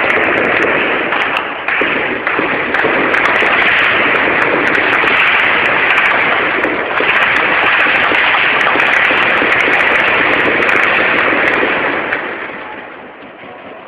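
Sustained heavy gunfire: a loud, dense crackle of rapid shots, cutting off about twelve seconds in.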